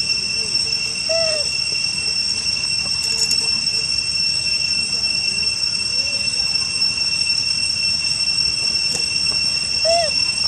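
Steady high-pitched insect drone, with two short chirping calls, one about a second in and one near the end.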